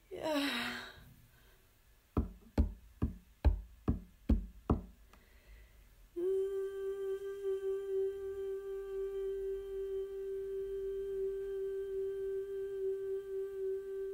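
A home-made vocal and percussion film score that mimics the on-screen action. It opens with a short falling vocal sound, then seven evenly spaced knocks, then from about six seconds in one long hummed note that stays steady in pitch.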